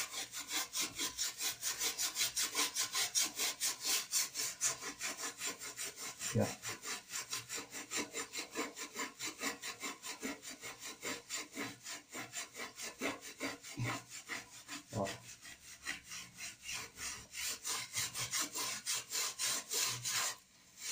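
Hand scrubbing on the outside of a greasy metal pot, a fast even back-and-forth rub at about four strokes a second, using toothpaste to lift the grease. The scrubbing pauses briefly near the end.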